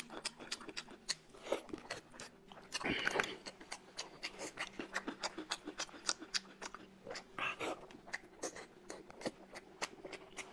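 Eating sounds: a man chewing and smacking on braised meat, with many small, irregular clicks from mouth and chopsticks against the plate, over a faint steady hum.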